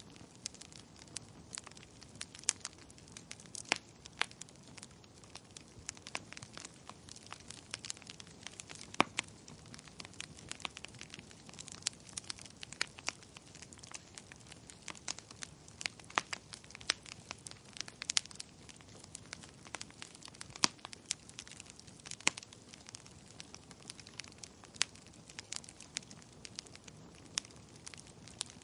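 Wood fire burning in a fireplace, crackling steadily with irregular sharp pops and snaps over a soft low hiss of flame.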